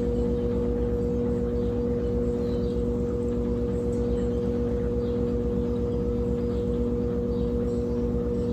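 Brastemp Tira Manchas Advanced 17 kg washing machine in its spin cycle, the drum spinning at a steady speed: an even motor hum with a low, fast rumble underneath.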